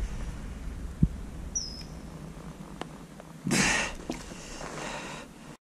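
Hooked zander splashing at the lake surface beside the angler and lifted out of the water by hand, with one short splash about three and a half seconds in, over a low rumble of handling noise.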